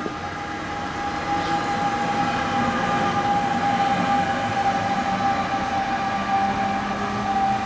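NJ Transit bilevel coaches rolling past, followed by the ALP-46A electric locomotive pushing at the rear, with a steady electrical whine that grows louder about a second or two in and holds as the locomotive goes by.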